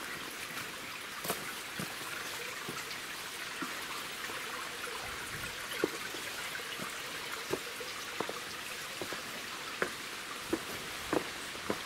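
Shallow stream trickling and babbling over a rocky bed, a steady watery hiss. Scattered short clicks and knocks of footsteps on loose stones sound over it.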